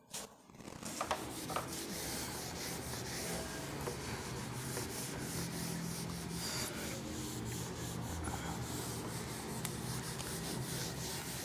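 A steady rubbing, scratching noise that starts about a second in and runs on evenly, with a faint low hum beneath it.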